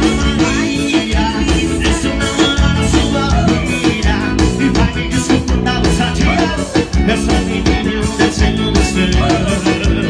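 Live forró band music played loud over the PA, with a drum kit keeping an upbeat rhythm under guitar and a male singer on the microphone.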